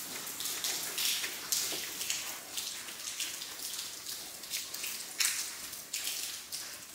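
Rain dripping and pattering, an irregular scatter of drops with a few louder splashes, from storm water coming into the building.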